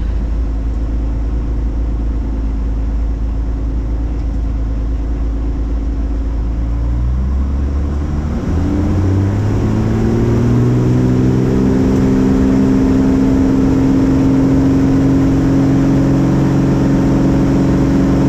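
Van's RV-10 light aircraft's piston engine and propeller: a low rumble, then about eight seconds in the engine is throttled up, its pitch climbing over a couple of seconds before settling into a steady full-power drone for the takeoff roll.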